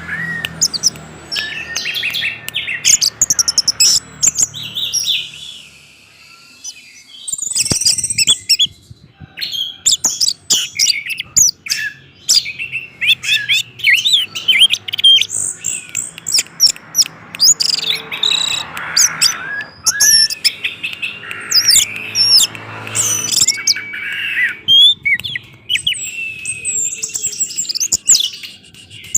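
Orange-headed thrush singing a fast, varied song of high chirps and whistled phrases, with a brief lull about seven seconds in.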